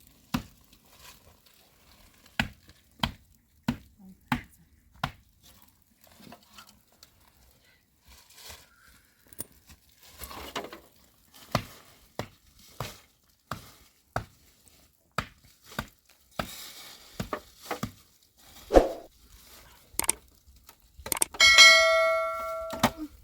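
A string of short knocks and clicks, then a ringing, bell-like tone lasting about a second and a half near the end.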